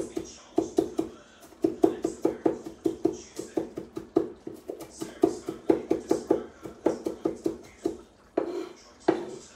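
Knife chopping parsley on a wooden cutting board: quick, even knocks about four a second, with a couple of short pauses.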